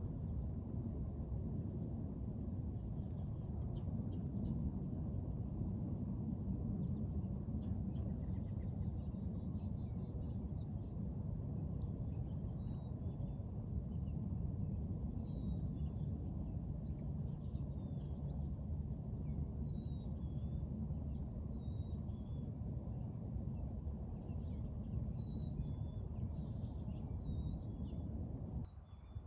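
Outdoor ambience: a steady low rumble with scattered faint, high bird chirps. The rumble drops away briefly near the end.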